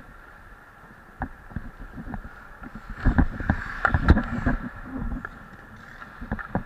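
Ice hockey goaltender's skates scraping the ice and pads and stick knocking close to a helmet-mounted microphone, over a steady hum. The knocks get busier and louder about three seconds in as a shot comes toward the net, with one sharp crack near four seconds.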